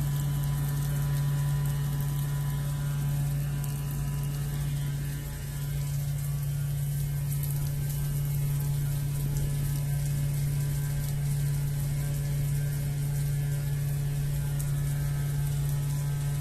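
Rain falling on an umbrella: a steady, even hiss, with a steady low hum underneath that is the loudest part.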